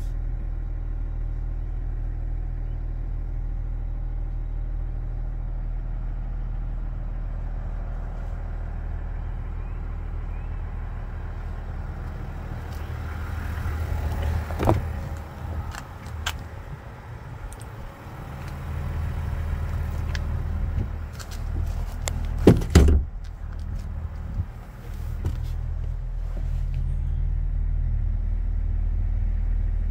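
Chevrolet Silverado 1500's 3.0L Duramax inline-six turbodiesel idling with a steady low hum, heard from inside the cab. Camera handling adds rubbing around the middle and a pair of sharp knocks about three-quarters of the way through.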